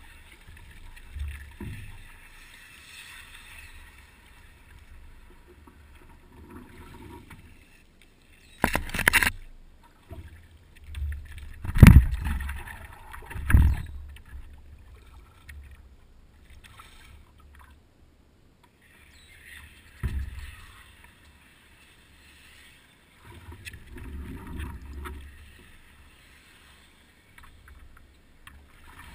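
Water lapping against the hull of a small paddle craft, broken by a few loud knocks and bumps on the hull near the middle, the loudest about twelve seconds in, as a dog moves about on its deck.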